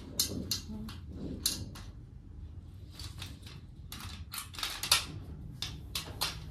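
Adjustable metal washing-machine stand being handled and shifted on a stone floor: its steel frame and caster wheels give irregular light clicks and knocks.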